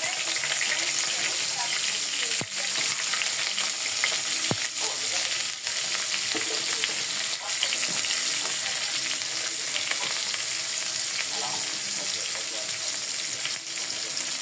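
Food frying in hot cooking oil in a pot: a steady sizzle, with a few sharp knocks of a stirring utensil against the pot.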